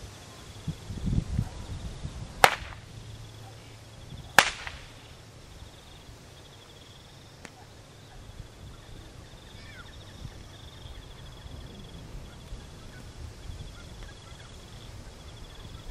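Two sharp, loud cracks of a whip about two seconds apart, after a few dull low thumps about a second in.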